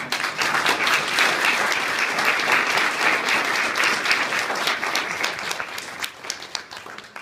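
A small audience applauding, starting all at once and thinning out toward the end into a few scattered claps.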